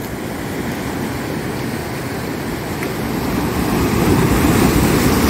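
Sea surf washing and breaking against a rock breakwater, a steady rush of water that swells louder about three seconds in.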